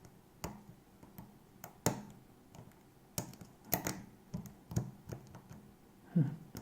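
Lock pick and tension tool working the pins of a five-pin pin-tumbler lock: about a dozen sharp, irregular clicks and taps.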